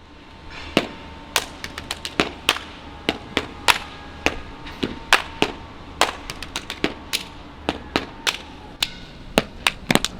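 Body percussion: sharp hand claps and slaps on the body in a quick, uneven rhythm of about two to three hits a second, with quicker clusters near the end.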